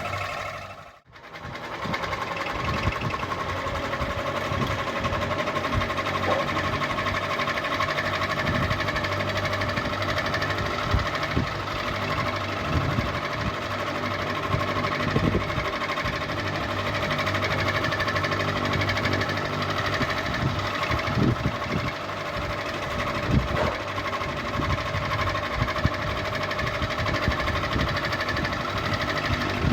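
Ceiling fan running with a steady motor hum of several tones, broken by irregular light knocks. The sound drops out briefly about a second in.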